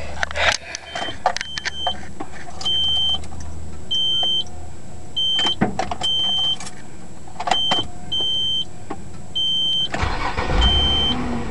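A car's warning chime beeping steadily, a short beep about every second and a half. About ten seconds in, the 1995 Nissan Maxima's 3.0-litre V6 cranks and catches on a cold start, starting right up while the chime goes on.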